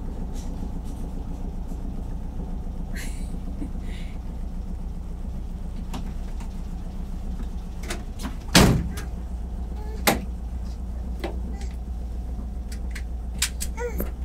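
The camper bus's engine idles steadily. Partway through, a door slams shut loudly, then a lighter knock follows about a second and a half later.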